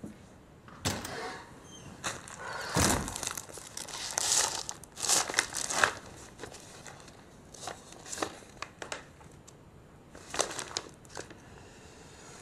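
Sheets of paper rustling and crinkling in irregular bursts as they are pulled from a plastic file sleeve and leafed through.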